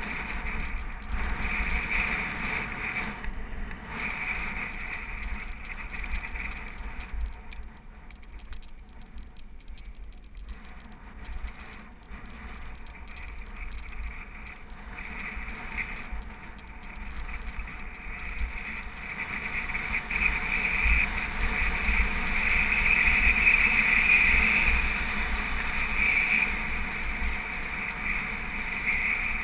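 Mountain bike rolling over a gravel fire road: tyre crunch and bike rattle, with gusty wind rumble on the camera microphone. It grows louder in the second half as the bike picks up speed.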